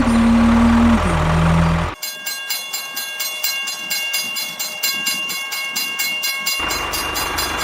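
Train sounds: a low steady hum with a falling tone for about two seconds, then the low hum cuts out and a rapid, even clicking follows, like wheels over rail joints, before the hum returns near the end.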